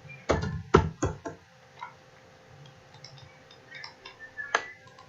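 Sharp clicks of a computer keyboard and mouse: four quick clicks in the first second and a half, then one more near the end.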